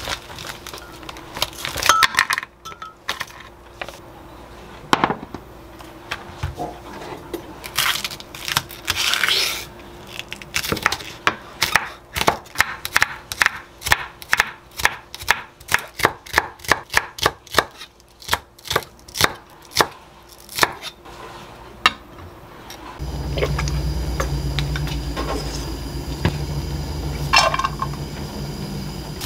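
Knife finely chopping a green onion on a wooden cutting board: quick, regular strokes, about three or four a second, after some scattered clicks and knocks of handling. Near the end the chopping stops and a steady low hum comes in.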